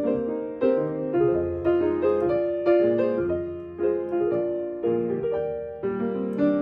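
Background piano music: a gentle melody of struck notes, each fading away before the next.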